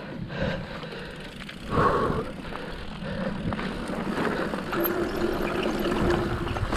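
Mountain bikes riding a muddy trail: steady tyre, chain and frame rattle, with a louder burst about two seconds in. From about four and a half seconds a steady pitched hum joins, like an e-bike's motor under load.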